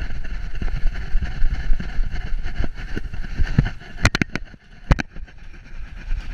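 Rumbling and rubbing handling noise from a GoPro strapped to a moving poodle's back, with fur and strap brushing against the camera. There are a few sharp knocks around four and five seconds in.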